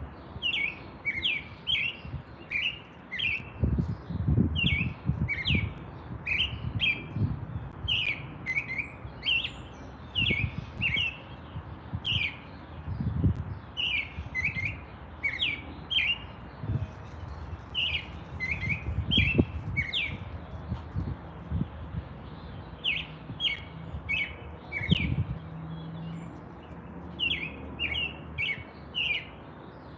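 Small birds chirping over and over: short, falling chirps in quick clusters of two to four, about every second. Irregular low thumps and rumbles run underneath.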